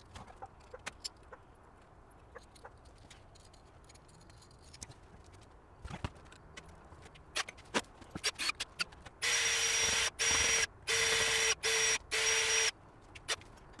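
A cordless power drill runs in about five short bursts with brief pauses between them, starting about nine seconds in, the loudest sound here. Before that, scattered light clicks and knocks of tools being handled on the workbench.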